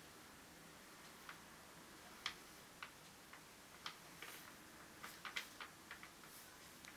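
Faint, uneven light clicks and taps of a paintbrush and small paint cup being handled during detailed acrylic brushwork, over quiet room tone, with a quick cluster of several about five seconds in.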